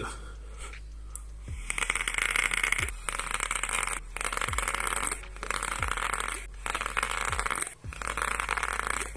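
Dual-coil vape dripper being fired and drawn on: the freshly dripped coils sizzle and crackle while air hisses through the airflow. The hiss comes in about six stretches of around a second each with short breaks between them.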